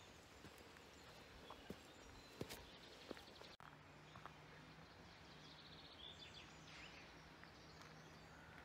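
Near silence: faint outdoor ambience with distant birds chirping in short, rapid trills.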